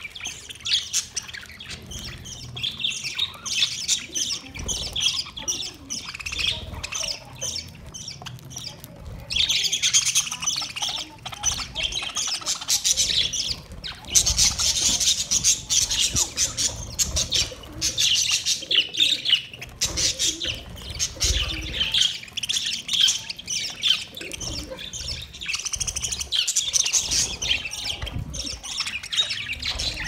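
A flock of budgerigars chattering and singing without a break, many high chirps overlapping. The chatter swells louder about ten seconds in and again around the middle.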